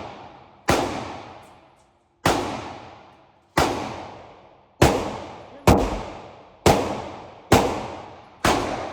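Eight pistol shots fired at a slow, slightly uneven pace, about one a second, each sharp crack trailing off in an echo lasting about a second.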